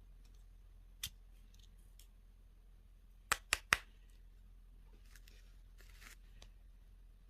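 Sharp clicks or snips from handling candy and toy packaging: one about a second in, then three in quick succession about three seconds in, followed by soft rustling of a wrapper.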